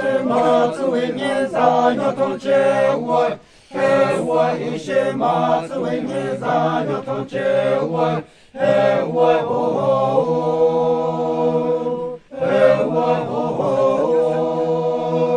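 A group of men chanting a traditional song in unison without instruments. The song goes in phrases separated by short breaks about every four seconds, and the later phrases hold long, steady notes.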